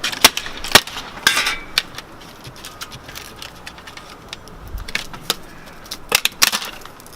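Sharp clicks and clatters of a smashed Apple keyboard's plastic and metal parts being hit and broken apart. The hits come in scattered strokes, with a quick cluster near the end.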